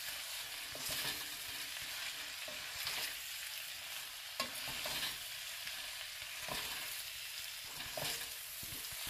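Cabbage, carrots and onions sizzling in an enameled Dutch oven while being stirred and tossed with wooden spoons: a steady frying hiss with irregular soft scrapes and knocks of the spoons against the pot.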